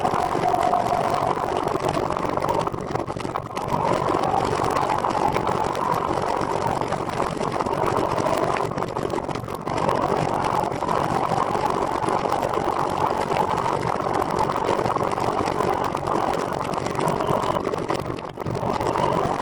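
Steady rolling noise of a recumbent trike on the move: wind rushing over the microphone and tyres on the path, with no engine note.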